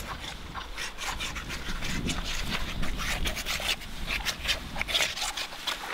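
Roll-on fly repellent applicator rubbed back and forth through a horse's coat, making quick, uneven scratchy rubbing strokes.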